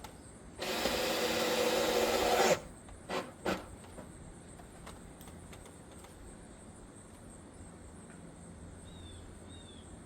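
Cordless drill/driver running for about two seconds, building slightly as it works into the wood, then two short trigger bursts. A few short bird chirps come near the end.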